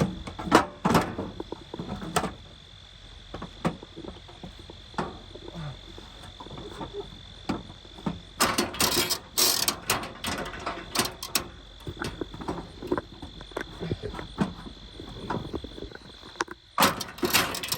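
Knocks, clicks and rattles of parts being handled on a lawn tractor, coming in clusters about halfway in and again near the end, over a steady high insect drone.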